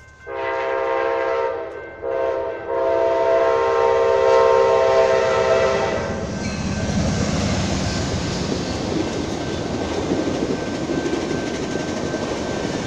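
Amtrak Genesis diesel locomotive sounding its horn for a grade crossing: a long blast, a short one, then a longer blast held about three seconds. The horn is followed by the steady rushing rumble and clatter of the Talgo train's wheels on the rails as the train passes close by.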